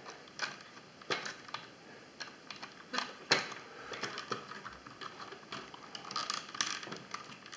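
Irregular small plastic clicks and taps as the plastic parts of a Walkera Rodeo 150 quadcopter are pressed and worked to clip them back onto its frame, with a sharper click about three seconds in.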